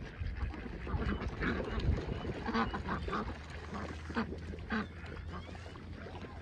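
A flock of domestic ducks quacking over and over as they crowd in to be fed, the calls short and overlapping.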